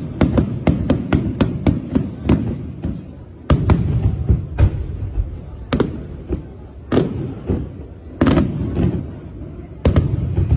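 Aerial fireworks display: a fast crackling run of sharp bangs for the first two seconds or so, then single heavier shell bursts about a second apart, each followed by a low rumbling echo.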